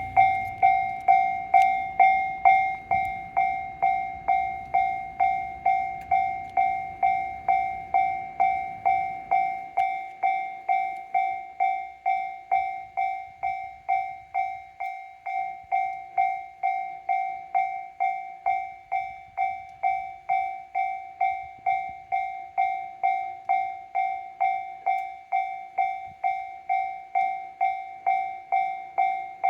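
Japanese level-crossing warning bell ringing steadily, an electronic clanging tone repeating about twice a second. Under it, the low rumble of a passing JR Kyushu 813 series electric train fades out about ten seconds in.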